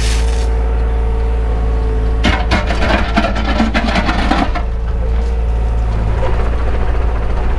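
Takeuchi excavator's diesel engine running steadily, heard from inside the cab. From about two seconds in to about four and a half seconds in there is a burst of clattering and scraping.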